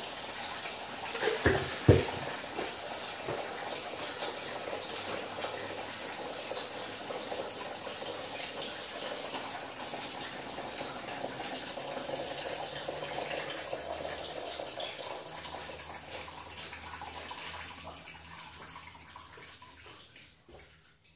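Engine coolant pouring out of the car's radiator drain in a steady stream, thinning out and dying away near the end as the radiator empties. Two sharp knocks come about a second and a half in.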